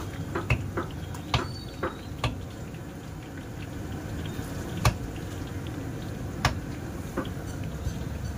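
Battered pieces deep-frying in a wok of hot oil: a steady sizzle and bubbling, with sharp pops every second or so, the loudest about five seconds in.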